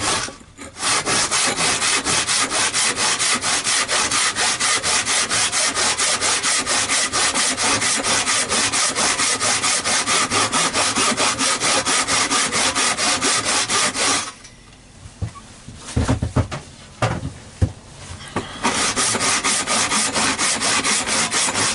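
A handsaw cutting through a thick, old wooden board in rapid, even back-and-forth strokes. The saw is an old one and slow going through the board. About two-thirds of the way through, the sawing stops for about four seconds with a few knocks, then starts again.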